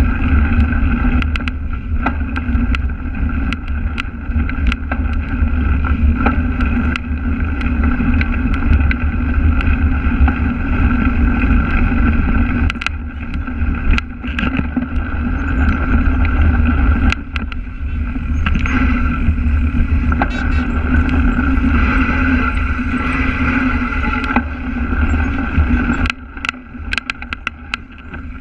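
Wind buffeting and rumble from riding, picked up by a camera mounted on a cyclocross bike moving across grass in a pack, with frequent clicks and knocks from the bike over the bumpy ground. The noise drops somewhat near the end.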